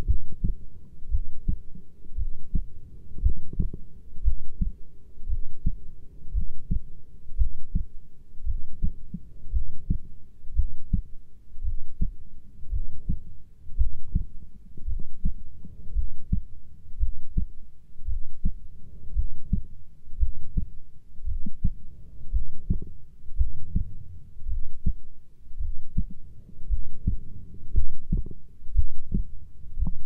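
Heartbeat: steady, regular low thumps at about one beat a second.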